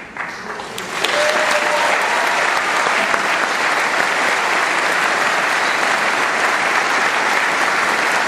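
Audience in a large hall applauding, building up about a second in and then holding steady.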